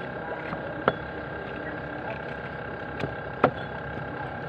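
Large knife chopping through tilapia on a cutting board: two sharp knocks, about a second in and again near the end, over a steady mechanical hum like an idling engine.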